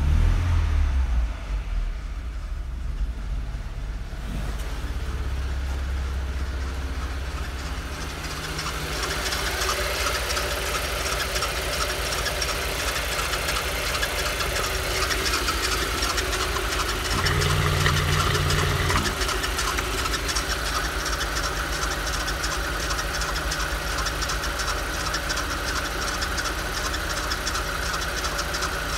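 Volkswagen Passat B5's 1.6-litre ANA petrol four-cylinder idling steadily, muffled at first as heard from inside the cabin, then with the bonnet open, where a fast, even ticking comes through. A little past the middle the low hum grows louder for about two seconds, then settles back.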